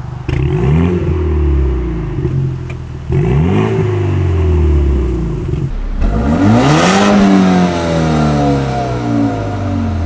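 Car engine free-revved three times at a standstill. Each rev is a quick rise and fall in pitch, with steady idle between them. The third and loudest, about two-thirds in, comes from a BMW 228i's N20 turbocharged four-cylinder with its muffler deleted.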